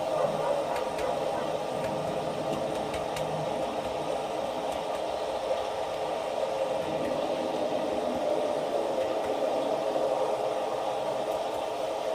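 Storm sound effect from a Broadway thunder and lightning effects unit under a model railway baseboard: a steady rushing noise with no sharp thunderclaps, and a few faint ticks.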